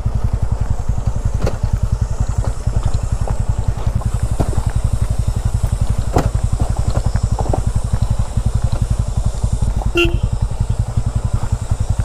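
TVS Ronin's single-cylinder engine running at low revs with a steady, rapid thump, heard close up from the bike as it rolls down a rough, stony track. Scattered knocks and rattles from the bike going over the bumps, and a brief high tone about ten seconds in.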